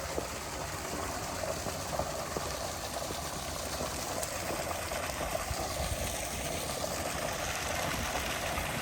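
Steady rush of running water, an even hiss without a beat or a tone.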